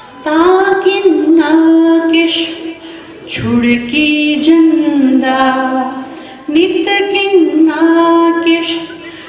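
A woman singing a poem unaccompanied into a microphone, in three drawn-out phrases of long held notes with short breaths between them.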